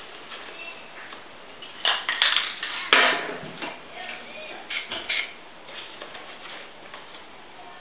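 Handling noise while spray-painting with paper masks: a run of quick clatters, then a louder knock with brief ringing about three seconds in, and a couple more short clatters around five seconds.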